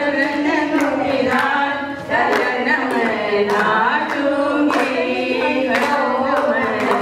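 A group of people singing a song together, with sharp hand claps scattered through it.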